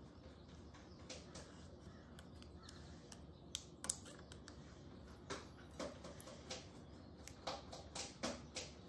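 Faint, irregular small clicks and crackles of a clear plastic transfer backing being peeled off an inlay decal on a guitar fretboard, with fingertips pressing the decal down. A few louder ticks come about four seconds in, and more cluster in the second half.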